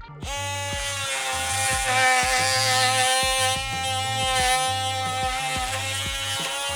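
Oscillating multi-tool cutting: a loud, steady buzz of unchanging pitch that starts just after the beginning and cuts off near the end. Background music with a bass line plays underneath.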